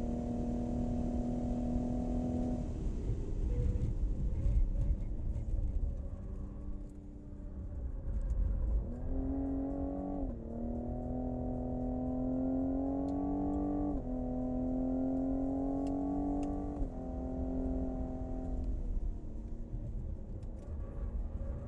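2020 Cadillac CT5-V's twin-turbo V6 under hard track driving: engine pitch climbing under full throttle and dropping sharply at each upshift, three times in the second half, after an easing off early on.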